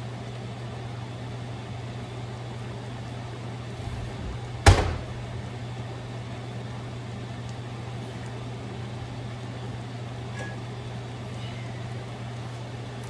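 Steady low hum of a kitchen appliance, with one sharp knock about five seconds in.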